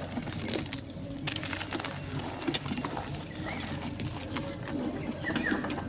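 Reformed gym chalk crunching and crumbling under the fingers: irregular small crackles and crisp clicks.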